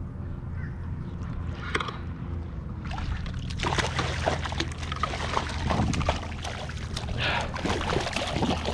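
Water sloshing and splashing against a kayak. It grows busier about three seconds in, with many small splashes and knocks over a steady low hum.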